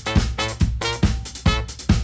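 Brass band playing an upbeat funk/swing groove: short, punchy brass chords hit about twice a second, each with a bass-drum thump under it.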